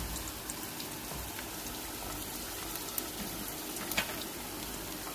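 Sliced bitter gourd (karela) deep-frying in hot oil: a steady sizzling hiss with a few scattered sharp pops.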